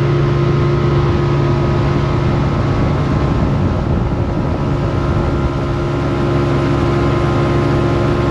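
Motorboat engine running steadily underway, a constant hum under a rush of wind and water noise.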